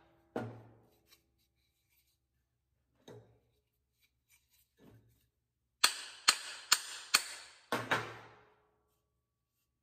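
Blows seating a body hammer's head onto a new wooden handle. There is one sharp strike near the start and two light knocks in the middle, then a quick run of about five ringing strikes near the end.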